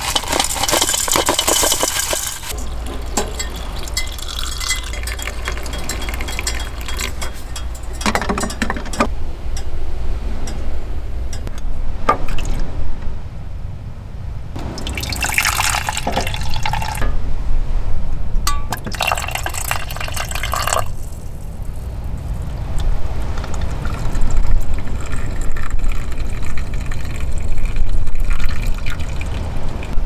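Tea being made by hand: liquid poured in short spells from a glass teapot into a metal mug, with light clinks of glass. A steady low rumble lies underneath.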